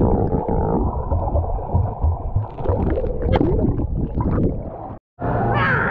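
Muffled underwater sound of a swimming pool, picked up by a camera below the surface: rumbling water and bubbles as a child swims past. About five seconds in it cuts out for a moment, then brighter pool noise from above the water comes in.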